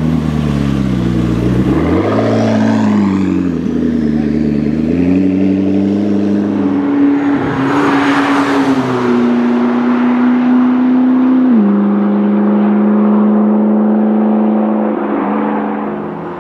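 McLaren MP4-12C twin-turbo V8 engines running under throttle, the pitch falling, rising and stepping between steady notes as the revs and gears change. About seven seconds in, a car passes close with a short rush of noise. Later a car holds a steady engine note that drops once at a gear change.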